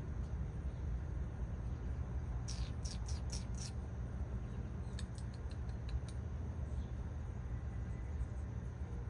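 Small perched bird giving a quick run of five sharp, high chip notes, followed about two seconds later by a few fainter ticks, over a steady low rumble.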